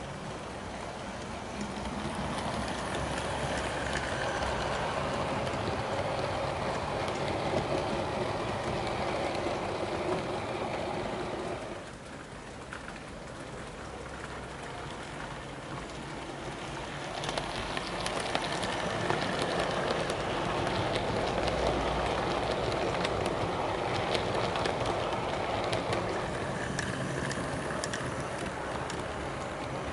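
Model railway trains running on the layout: a steady rumble of wheels and motors on the track with faint clicks. It drops about twelve seconds in and builds up again about five seconds later.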